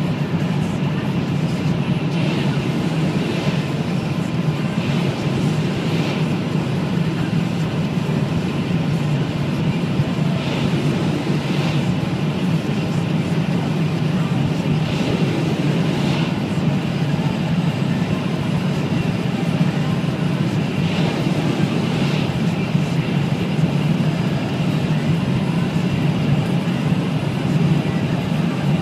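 Inside the cabin of a BMW 735i (E65) at about 240–250 km/h, near its top speed: its 3.6-litre V8 running steadily at around 6,000 rpm, mixed with wind and tyre noise, the speed slowly creeping up.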